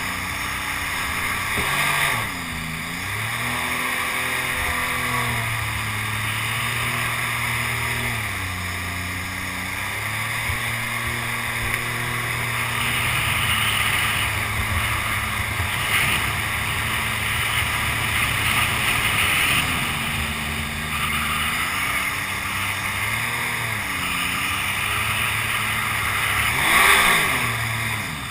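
Mini jet boat's engine running on the river, its pitch dropping and climbing back several times as the throttle eases and opens: about two seconds in, around nine seconds, around twenty-one seconds and near the end. A steady rush of water runs under it.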